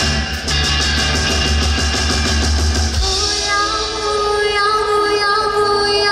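Live rock band playing loud, with drums, bass and guitar; about three seconds in the heavy low end drops away and a held melody line carries on over a lighter backing.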